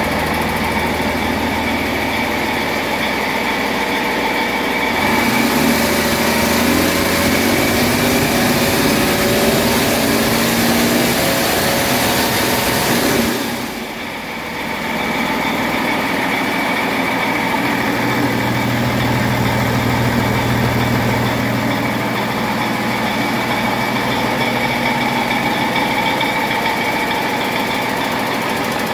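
2011 Cummins ISB 6.7-litre inline-six turbo diesel running steadily on a test stand, which the seller says runs excellent. It grows louder, with a hiss, for several seconds in the middle, dips briefly, then settles back to a steady run.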